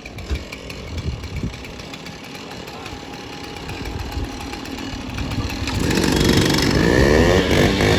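Chainsaw engine running at a low level with a few knocks, then revved hard about six seconds in, its pitch swinging up and down and the sound getting much louder.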